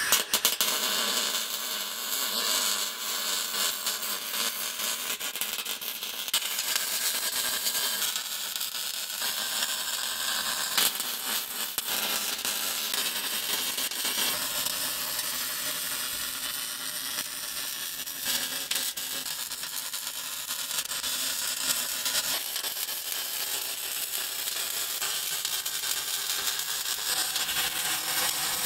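MIG welding on steel hull plate: the steady crackling hiss of the welding arc, with an occasional sharper pop.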